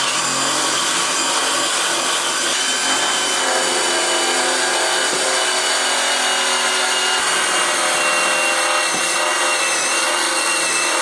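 Power drill running continuously, drilling out rivets: a steady high motor whine that starts and stops abruptly and sags slightly in pitch near the end.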